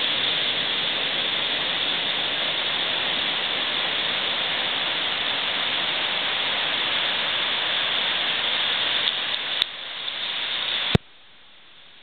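Steady hiss of ocean surf breaking and washing onto the shore, cutting off abruptly with a click about eleven seconds in.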